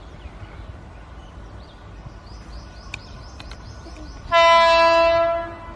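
Electric locomotive hauling a goods train sounds its horn once, about a second in length and steady in pitch, near the end. Underneath runs the steady low rumble of the approaching train.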